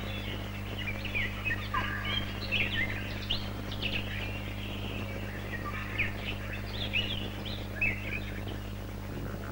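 Birds chirping and singing, many short quick notes overlapping, over a steady low hum.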